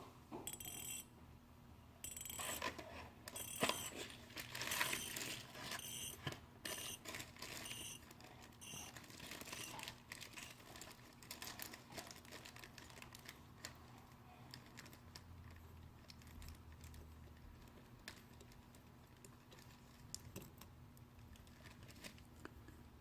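Screwdriver backing a carburetor's idle mixture screw out of its bore: faint metal-on-metal clicking and scraping, busiest in the first ten seconds, then only occasional ticks.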